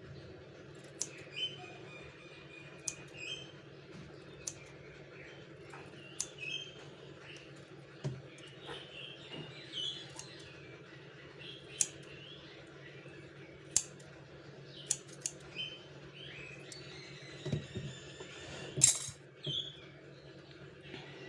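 Sharp clicks of scissors snipping a cat's claws, one every second or two, the loudest near the end. Short, high chirping squeaks come in between the snips, over a low steady hum.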